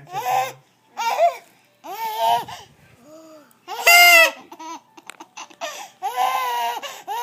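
A baby laughing and squealing in a string of short, high-pitched bursts, the loudest about four seconds in.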